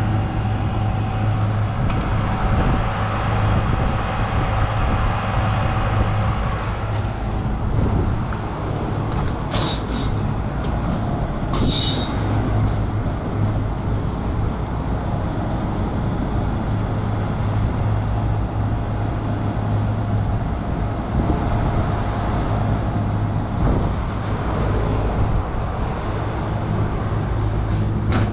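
Steady low mechanical hum of running machinery, with a few short sharp ticks about ten and twelve seconds in.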